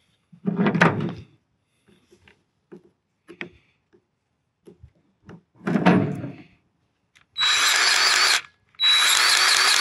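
Cordless grease gun pumping grease into the grease fitting of a newly fitted PTO universal joint: a few light clicks of the coupler being worked onto the fitting, then the gun's motor runs in two bursts of about a second each near the end, with a wavering whine.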